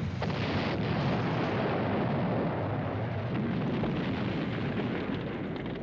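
Heavy artillery barrage: a continuous rumble of explosions running together, with no single blast standing out, easing slightly near the end.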